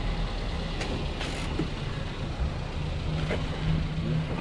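Motor vehicle engine running steadily under a haze of road noise while moving along a street. The engine hum grows a little stronger near the end.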